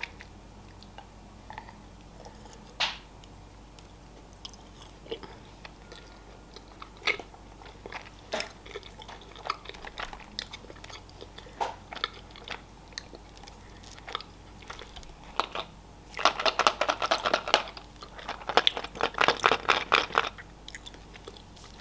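Someone chewing milk chocolate, with soft sparse bites and mouth sounds. About 16 s in come two loud stretches of crinkling foil as a foil-wrapped Kinder egg is handled.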